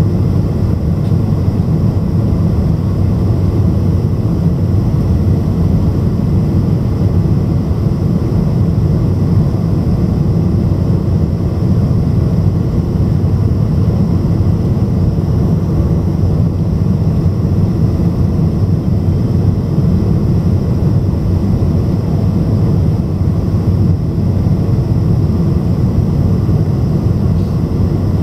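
Boeing 747 cabin noise on final approach: a steady, deep rumble of engines and rushing air that holds even throughout.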